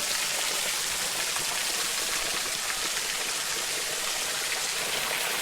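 Small waterfall splashing steadily onto rock, an even rushing hiss with scattered drips.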